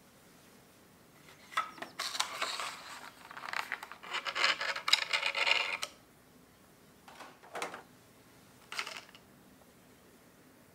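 Clear rigid plastic display cover of a Funko Mini Moments set being handled and pulled off. The plastic crinkles and clicks for about four seconds. Then come a few short plastic clicks and knocks as small pieces are lifted.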